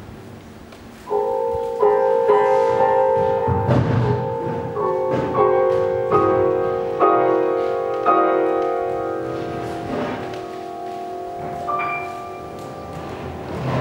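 Yamaha grand piano played. After about a second of quiet comes a run of chords struck one after another, left ringing so that they overlap and slowly die away, then a few single high notes near the end.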